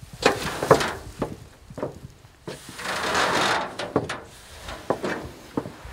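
Footsteps and knocks on a utility trailer's steel mesh ramp and wooden deck as a deer carcass is dragged aboard. In the middle there is a scraping rush of about a second as the body slides over the boards.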